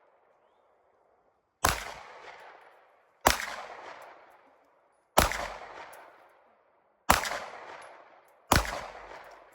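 Five single gunshots fired at a steady pace, about one every second and a half to two seconds, each followed by a short echo that dies away.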